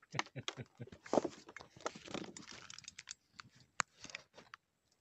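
Handling noise close to the microphone: irregular rustles, scrapes and clicks of a hand moving against the phone. One sharp click comes a little before four seconds in.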